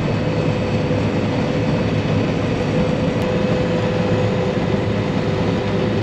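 An engine running steadily, with a low drone and a constant mid-pitched whine.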